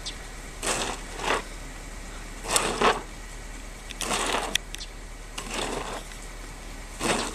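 Snow shovel scraping and pushing through snow on a driveway in about six separate strokes, with a few sharp clicks about halfway through.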